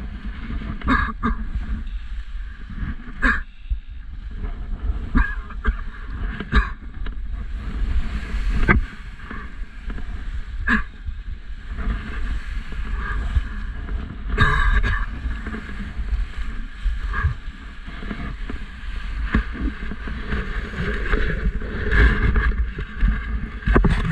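Strong wind buffeting the microphone in flight, a heavy low rumble that gusts up and down, with irregular sharp knocks scattered through it.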